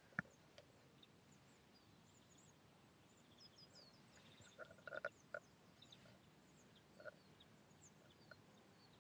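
Near silence with faint, scattered high bird chirps and a few short animal calls about halfway through and again near the end.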